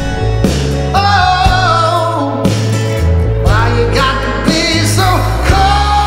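Music for a dance routine: a song with a held, wavering sung melody over a deep bass line.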